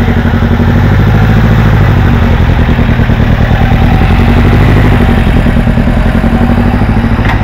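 Vehicle engine running close by at low speed, with a rapid, even pulsing beat. A short click sounds near the end.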